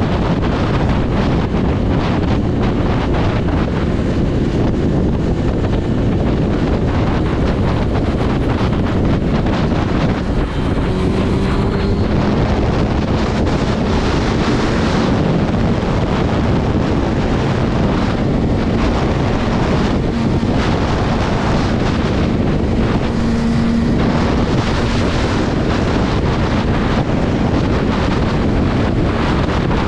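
Heavy wind rush on the microphone from riding a sport motorcycle at highway speed, with the bike's engine running underneath. About ten seconds in, a faint engine hum rises a little in pitch and then holds steady.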